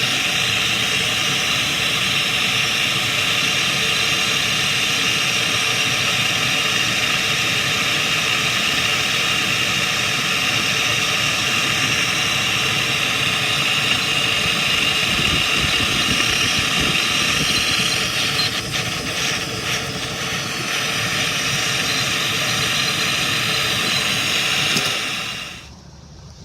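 Gas torch flame roaring steadily while a copper pipe joint is brazed. It cuts off suddenly near the end.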